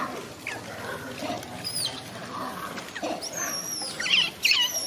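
Macaque monkeys giving several short, high-pitched squealing calls that glide in pitch, the loudest two coming close together near the end.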